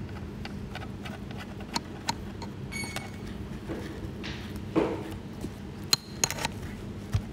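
Small plastic clicks and taps as the black plastic canopy and frame parts of an ESKY 300 V2 mini RC helicopter are handled and fitted together, with a couple of brief ringing pings, over a steady low hum.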